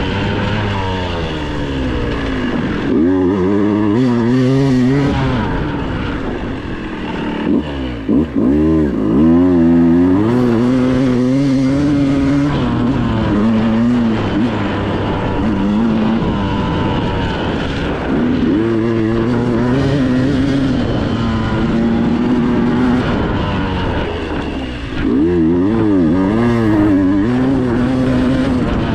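Dirt bike engine ridden hard on a trail, its revs rising and falling with the throttle, with two sharp drops in revs, about eight seconds in and again near the end.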